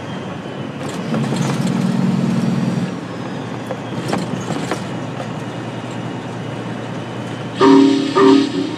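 Steady engine and road noise inside a loaded tractor-trailer's cab; the low drone swells for a couple of seconds about a second in. Near the end, music starts with a few short, loud chords.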